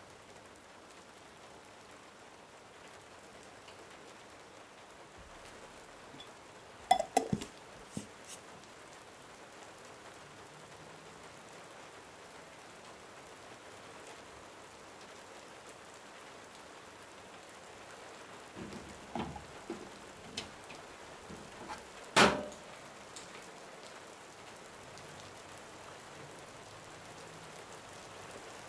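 Steady rain falling, a soft even hiss. A few sharp knocks break through it: a quick cluster about seven seconds in, several lighter ones later on, and the loudest single knock a little past twenty-two seconds.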